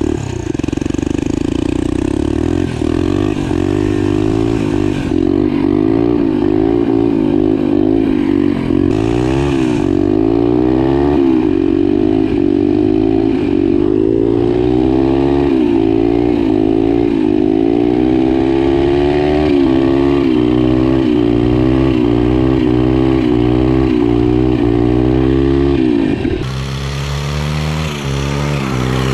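Turbocharged pit bike's single-cylinder engine running hard under acceleration, its pitch climbing again and again and dropping at each gear change. About three seconds before the end the sound changes abruptly to a quieter, lower engine sound.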